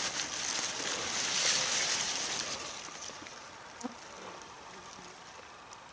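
Grass rustling and being handled close to the microphone, a dry hiss that fades after about three seconds.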